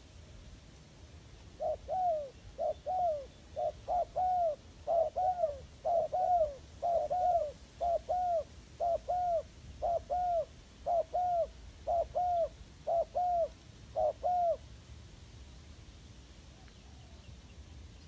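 Spotted dove cooing: a run of short, arching coos, many in quick pairs, from about two seconds in until about fifteen seconds in, when it stops.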